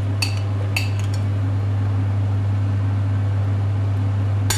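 Steady low hum of a kitchen appliance's fan running, with a few light clinks of a utensil and glass bowl against a steel baking tray in the first second and a sharper clink near the end.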